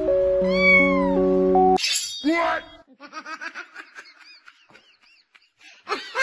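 Piano music that stops sharply, then a cat meowing: one louder meow with a falling pitch, followed by a run of short, quieter mews that grow louder again near the end.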